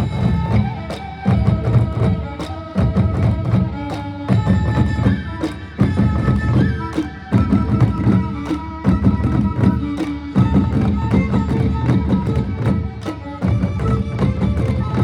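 Manipuri pung barrel drums beaten in a fast, dense rhythm, with sharp cymbal strikes and a held melody above them.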